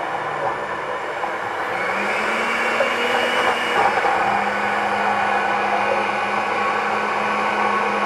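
Countertop blender motor running steadily, a hum and whir with a pitch that steps up about two seconds in and again about halfway through.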